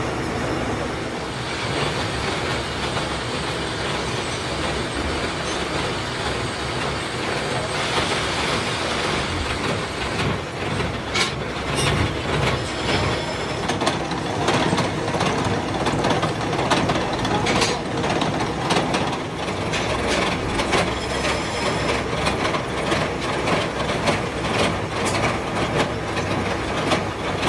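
Old gear hobbing machine running, its rotating hob cutting sprocket teeth into a stack of steel blanks: a steady mechanical clatter that turns into a denser run of sharp clicks and knocks from about ten seconds in.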